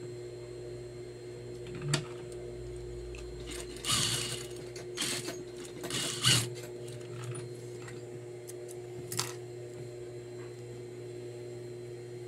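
Juki industrial lockstitch sewing machine, its motor humming steadily, stitching in a few short bursts to bartack the corners of a pocket, the loudest burst about six seconds in.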